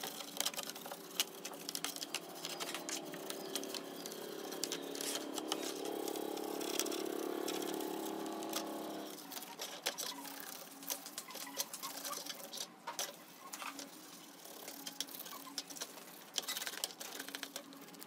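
A stiff brush scrubbing a dirty laptop logic board and keyboard in short, scratchy strokes. From about three seconds in, a steady humming drone swells up and cuts off suddenly around nine seconds.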